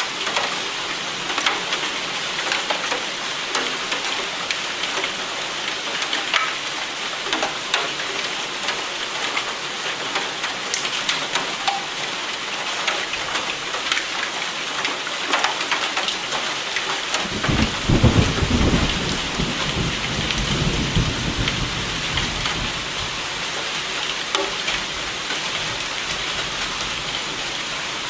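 Steady rain with many distinct drop ticks, and a roll of thunder that breaks in about two-thirds of the way through and rumbles away over several seconds.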